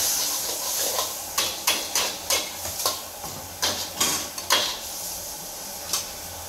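Metal wok ladle and spatula clanking and scraping against a wok as noodles are stir-fried, about a dozen irregular clanks over the hiss of frying.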